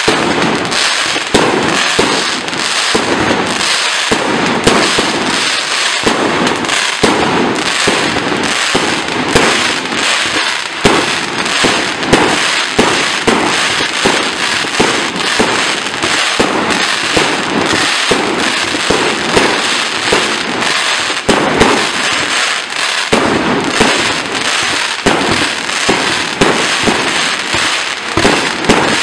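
Power House 200-shot fireworks cake firing continuously: a rapid, steady string of shots launching and bursting overhead.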